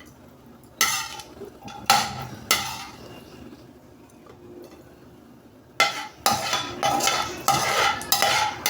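Metal spoon knocking and scraping against a cooking pot while stirring: three sharp clinks in the first few seconds, then a quicker run of clinks near the end.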